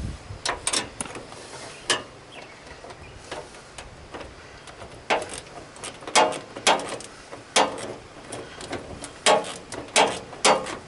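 Irregular clicks and clacks of hand tools and hardware being handled while a bolt and lock nut are fitted through a plastic mower-hood grill, in scattered clusters with the loudest near the middle and near the end.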